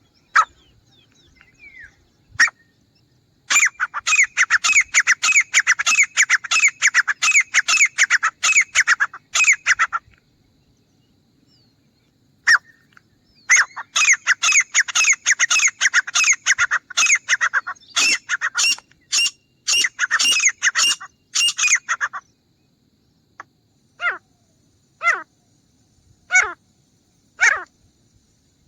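Grey francolin calling: two long runs of rapid, repeated sharp calls, then single calls about once a second near the end.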